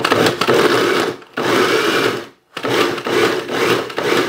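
Small electric food processor chopping chunks of cooked brisket in pulses: the motor runs, stops briefly about a second in and again about two and a half seconds in, then runs again.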